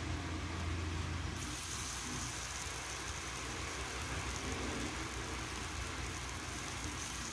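Cubes of duck blood sizzling in hot oil in a wok after being tipped in from a steel bowl, the hiss of the frying rising about a second and a half in, with a spatula moving them around. A steady low hum runs underneath.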